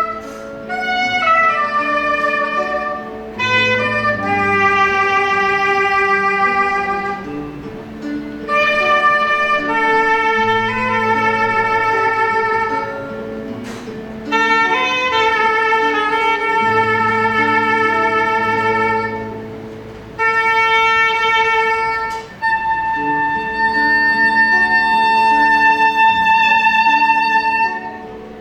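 Soprano saxophone playing a slow ballad melody in long held notes with vibrato, over accompaniment with a bass line.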